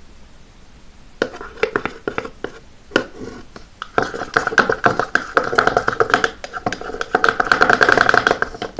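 Slime being squished and kneaded by hand, giving wet clicks and pops. They are sparse at first, then come thick and louder from about four seconds in.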